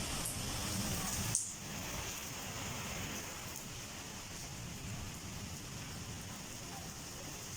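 Heavy rain falling, a steady even hiss, with one sharp click about a second and a half in, after which it is a little quieter.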